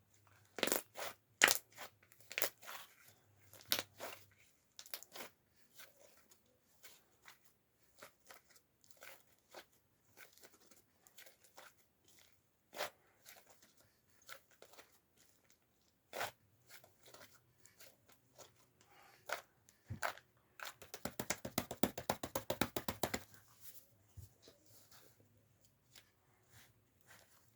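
Close-up crackling and tearing handling sounds, a scatter of sharp clicks with a dense run of rapid crackles about 21 seconds in.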